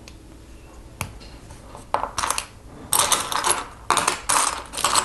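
Small plastic Lego pieces clattering and rattling against each other in several short bursts, with a single click about a second in.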